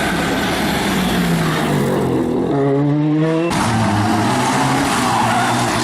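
Rally car engine heard from inside the cockpit, running hard under load with its pitch dropping about two seconds in. About three and a half seconds in the sound switches abruptly to another rally car's engine running at steady high revs.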